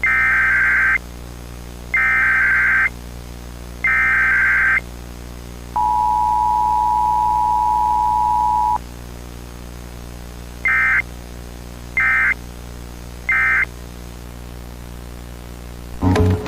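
Emergency Alert System signal: three SAME header data bursts with a warbling digital screech, each about a second long, then the two-tone EAS attention signal held steady for about three seconds. Three short end-of-message data bursts follow, with no spoken message in between, over a faint steady hum.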